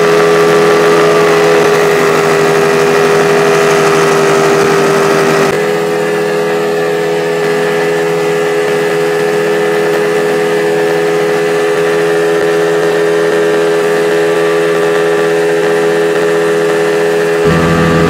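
Bajaj Pulsar motorcycle engine, a single-cylinder four-stroke, running steadily as it drives a small homemade boat, with the hiss of water from the wake underneath. Its tone shifts abruptly about five seconds in and again near the end.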